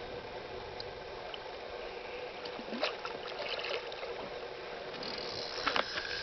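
Water sloshing and splashing against the side of a boat as a hooked pike is pulled in close, with a few sharp splashes about three seconds in and again near the end.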